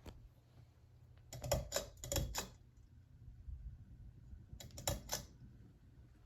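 Two short runs of quick clicking and rattling, one about a second in and a second near the end, over a faint steady low hum.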